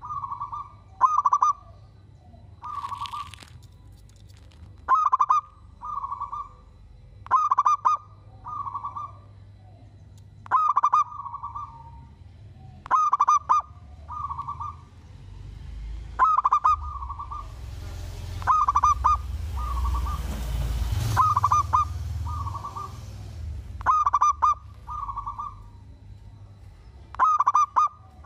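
Zebra dove (perkutut) singing its cooing song: a stuttering cluster of soft coos followed by a smoother coo, repeated every two to three seconds. A rushing hiss with a low rumble swells and fades in the middle.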